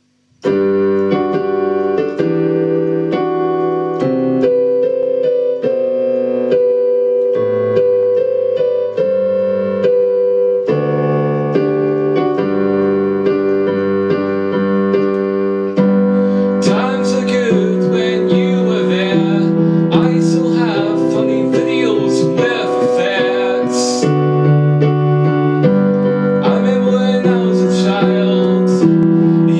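Digital keyboard on a piano voice playing slow held chords, starting abruptly about half a second in. From about halfway a man's voice comes in singing over it.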